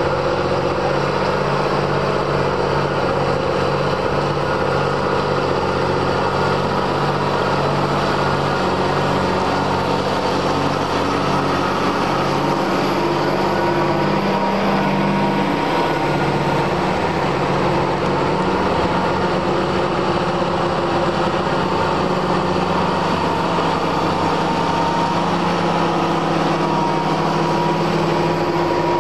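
John Deere tractor engine running steadily under load while pulling a Lemken plough, with a thin steady whine over the engine note.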